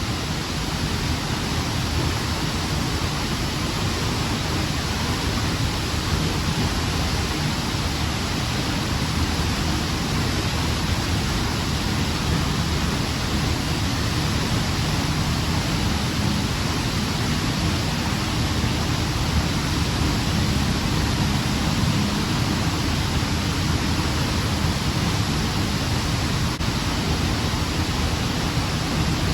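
Waterfall's falling water, a loud, steady rush with no let-up.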